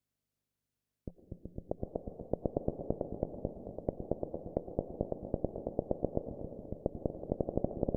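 Homemade square-wave and noise synthesizers starting about a second in with a buzzy drone-noise texture and a rapid stream of clicking pulses, growing slightly louder.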